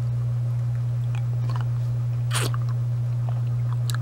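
Mouth sounds of a hard-candy lollipop being sucked and licked: small wet clicks, with one louder, brief noise about two and a half seconds in. A steady low electrical hum runs underneath.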